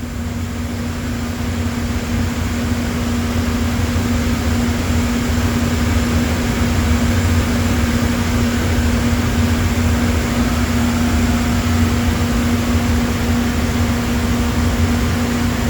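Steady machine hum and whir from the running CNC router setup, with one constant tone over a low drone, growing slightly louder over the first few seconds.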